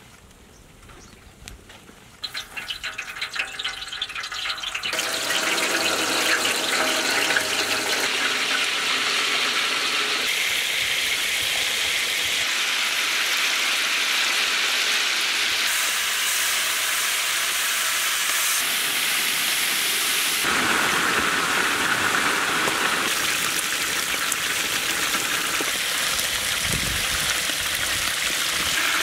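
Marinated chicken pieces frying in hot oil in a large, wide metal pan. The sizzle starts about two seconds in and within a few seconds builds to a loud, steady hiss.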